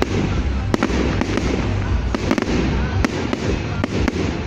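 Fireworks going off: more than a dozen sharp bangs and cracks at irregular intervals over a steady low rumble.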